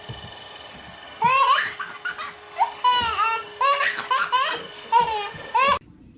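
A baby laughing hard: a rapid series of high-pitched laughs that starts about a second in and breaks off suddenly just before the end.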